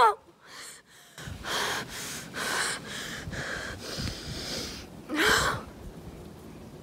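A girl gasping and breathing hard in ragged puffs, with a short falling cry as it begins and a louder strained cry about five seconds in.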